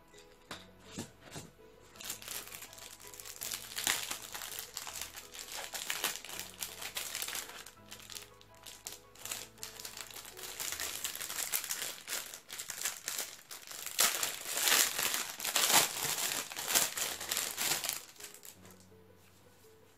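Plastic packaging crinkling as hands handle and unwrap plastic-wrapped merchandise, an irregular crackle that starts about two seconds in, is busiest in the last third and stops shortly before the end. Faint background music plays underneath.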